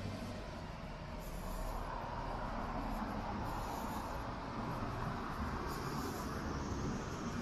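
Steady city street traffic noise from vehicles passing.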